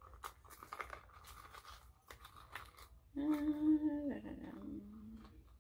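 Hands handling and opening a small leather wallet: soft rustling and light clicks. About three seconds in, a woman hums, holding one note and then dropping to a lower one, louder than the handling.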